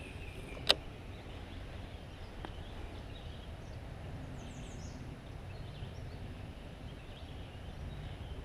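Quiet outdoor ambience with a steady low rumble, a single sharp click a little under a second in, and faint high bird chirps about halfway through.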